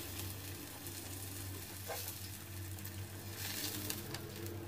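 Mushroom slices sizzling on a hot griddle pan, with light clicks of metal tongs against the pan as the pieces are turned.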